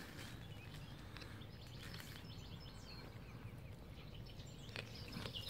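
A cat chewing a freshly caught mouse, a few faint crunches, against faint birdsong.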